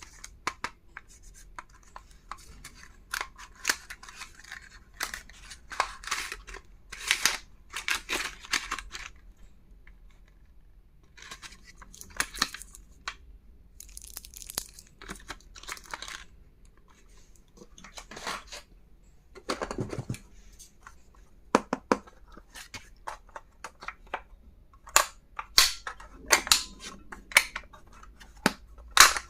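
Packaging being handled and unwrapped by hand: intermittent rustling and tearing of wrappers, with sharp clicks and taps of small stationery items being handled.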